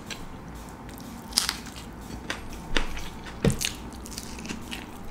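Close-miked eating: a man chewing chicken biryani and biting into a piece of chicken, with a scattering of sharp, separate mouth clicks and smacks over a quiet background.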